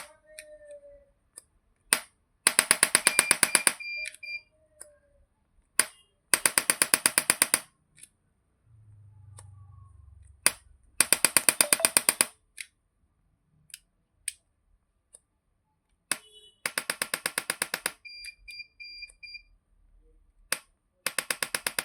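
Electric chiropractic adjusting gun firing runs of rapid impulses: five bursts of about a dozen sharp clacks at about ten a second, each a little over a second long and each preceded by a single click, with pauses of a few seconds between them. The fourth burst is quieter than the others.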